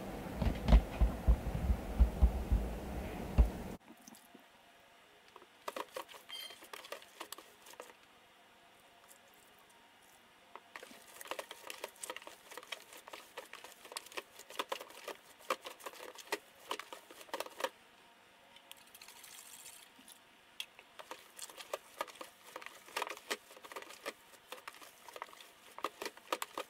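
Hands squeezing and kneading ground venison-and-pork meat in a plastic tub, working in summer sausage seasoning: a run of quiet, irregular sticky squishes and small clicks. The first few seconds instead hold louder, low, rhythmic thudding.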